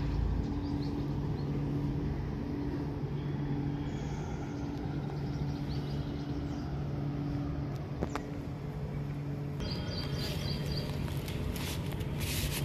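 A steady low mechanical hum at two low pitches, with a single click about eight seconds in.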